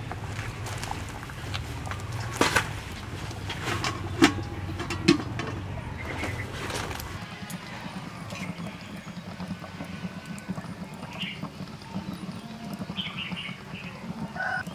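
A few sharp metal clanks in the first half as a steel dome lid is set on the wok, then a steady low hum from the wood cooking fire with small crackles and a few short bird chirps.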